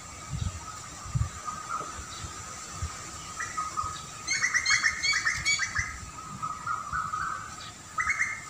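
Songbird singing a fast phrase of quickly repeated chirping notes about four seconds in, with a shorter burst near the end, over a faint steady high tone.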